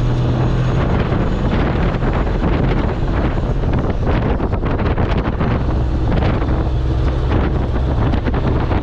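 Combine harvester running steadily while cutting soybeans, with a low engine hum under dense rattling, and wind noise on the microphone.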